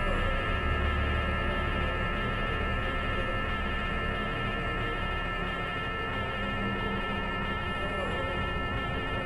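Steady droning soundscape: many held high tones layered over a low rumble, unchanging throughout.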